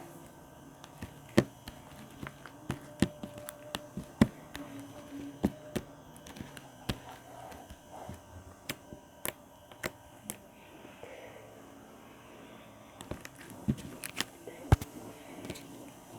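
Slime being squeezed and stretched by hand, giving a string of sharp irregular clicks and pops from trapped air, one to three a second.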